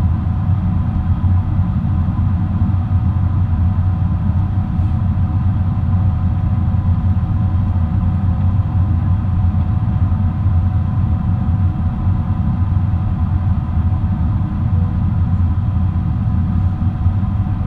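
Steady cabin noise of a Boeing 777-300 in flight: a deep, even rumble of engines and airflow, with faint steady engine tones above it.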